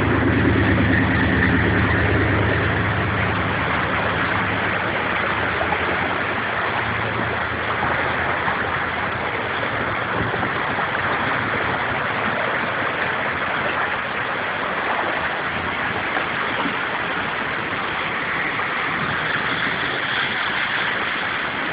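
Steady rush of fast-flowing water in a small creek swollen by hailstorm runoff. A low hum under it fades out over the first several seconds.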